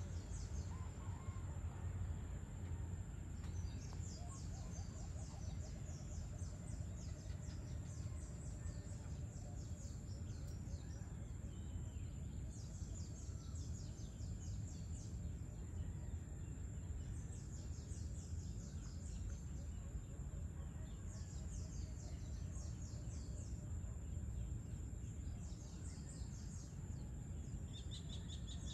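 Outdoor evening ambience: a low steady rumble, a thin steady high whine, and bouts of rapid high chirping a few seconds long that come every few seconds. Near the end a run of quick, slightly lower repeated chirps joins in.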